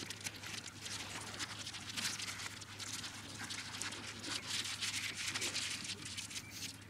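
Paper towel rustling and rubbing between the fingers as it is rolled up tightly into a thin strand: faint, irregular crinkling.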